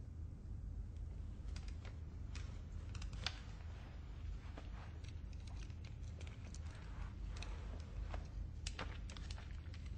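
Scattered light clicks and rustles, the handling noise of eyeglasses being taken off and clothing moving, over a low steady hum.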